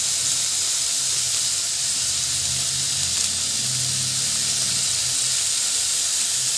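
Chopped onion, bell pepper and tomato sizzling in hot oil in a pan as they sauté, a steady hiss.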